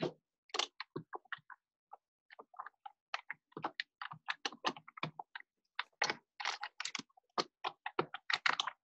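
Typing on a computer keyboard, heard over a video call: irregular keystrokes, several a second, with brief pauses.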